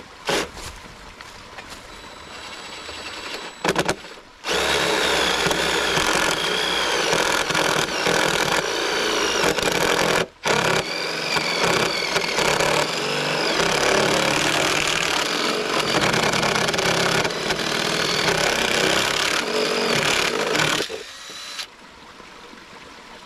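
Cordless drill boring through thick wood with a long bit, after a few short starts, the motor whine wavering as it labours under load. It stops briefly about ten seconds in, then runs on and stops near the end.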